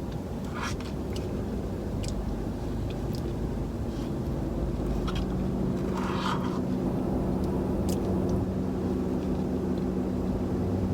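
A car engine running steadily with a low hum that grows a little stronger about halfway through, with a few faint clicks over it.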